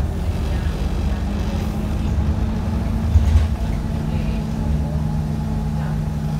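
Scania double-decker bus driving, heard from inside on the upper deck: a steady low engine drone under road rumble. About three seconds in there is a brief low thump, and the engine note shifts a little after four seconds.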